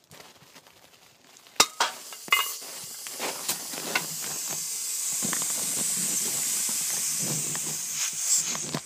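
A sharp knock about a second and a half in as the CRT picture tube is struck and holed, a few smaller clicks, then a steady loud hiss of air being sucked into the evacuated tube through the hole, lasting about six seconds and cutting off suddenly near the end as the vacuum fills.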